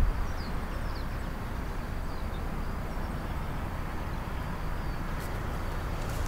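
Open-country outdoor ambience: a steady low rushing background with a few faint, short bird chirps scattered through it.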